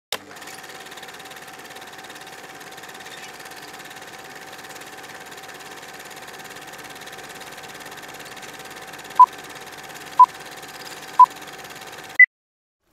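Film-projector running sound effect, a steady mechanical whir with a hum, under a countdown leader: three short beeps a second apart near the end, then one higher-pitched beep, after which everything cuts off suddenly. A short click starts it.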